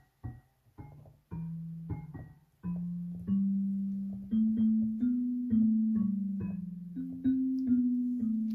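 SoundMy G-310W digital piano playing a mallet-percussion (xylophone-family) voice. A few short struck notes are followed, from about a second in, by a slow line of longer ringing notes that climbs step by step and then comes back down, the last note dying away.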